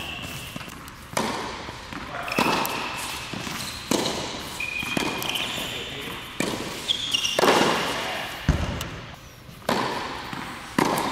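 A doubles tennis rally: tennis balls struck by racquets about every one to two seconds, each hit echoing in the indoor court hall, with brief squeaks of tennis shoes on the hard court between shots.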